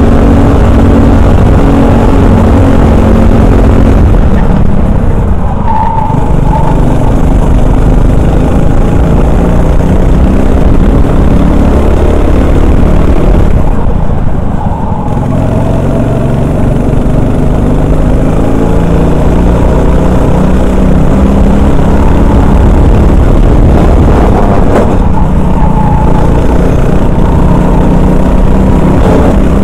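Honda 390 cc four-stroke single-cylinder kart engine at racing speed, heard close up from the driver's helmet, its pitch rising and falling with the throttle. It drops off three times, about ten seconds apart, as the throttle lifts for corners, then climbs again.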